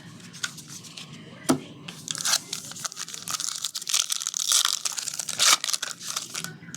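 Foil trading-card pack wrapper being torn open and crinkled: a sharp snap about one and a half seconds in, then a few seconds of dense, crackling tearing.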